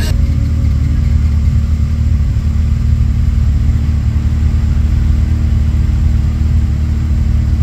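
Off-road vehicle engine idling steadily, a deep, even rumble with no revving.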